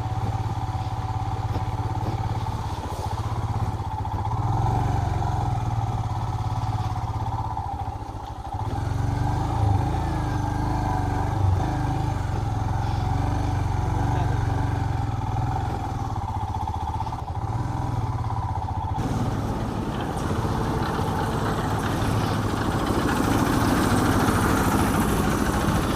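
Royal Enfield Himalayan's single-cylinder engine running steadily at low speed as the motorcycle is ridden slowly. There is a brief dip about eight seconds in, and from about nineteen seconds a higher rushing noise joins the engine.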